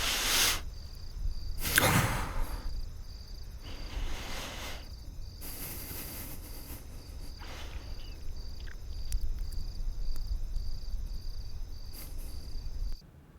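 Crickets chirping in a steady, evenly pulsing trill, with several short rushes of noise over it. It all cuts off about a second before the end.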